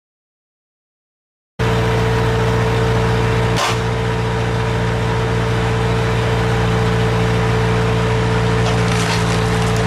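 Skid-steer loader's engine running steadily under hydraulic load, driving a front-mounted log splitter; the sound starts after a short silent gap, and one sharp crack stands out about two seconds after it starts.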